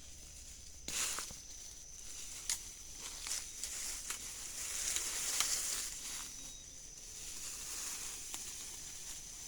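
Night-time forest insects chirring steadily in a high, even drone, with a few sharp crackles of leaves or twigs being disturbed about one, two and a half, and five seconds in.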